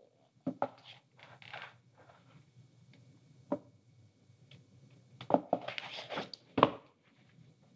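Pages of a hardback picture book being handled: soft paper rustles and light taps, with a louder flurry of rustling about five seconds in that ends in a sharp tap.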